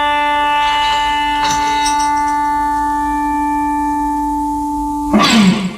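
The song's closing held note: one steady, unwavering instrumental tone sustained for about five seconds. Near the end a short noisy burst with a falling pitch cuts it off.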